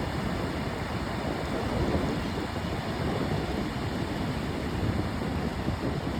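Ocean surf washing steadily, with wind buffeting the microphone in an irregular low rumble.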